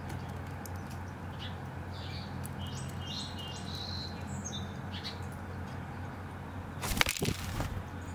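Mourning dove flapping its wings as it takes off from the feeder: a brief burst of wingbeats about seven seconds in.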